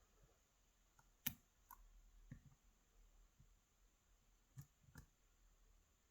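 A few faint, scattered clicks of a lock pick working the pins of a pin-tumbler lock cylinder based on a Schlage mortise cylinder, the sharpest about a second in.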